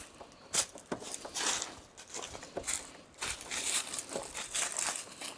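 Irregular clicks, knocks and rustling scrapes of bumper parts being handled and taken apart by hand.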